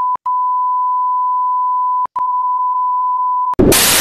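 Steady 1 kHz broadcast-style test tone, broken twice by brief dropouts, then a sudden cut to loud analog TV static about three and a half seconds in.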